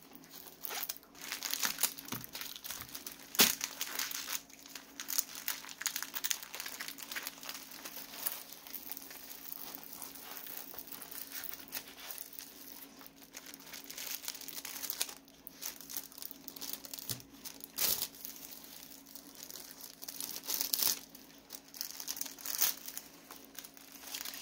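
Clear plastic packaging crinkling and rustling as it is handled and opened, with scattered sharp clicks; the loudest click comes a little over three seconds in.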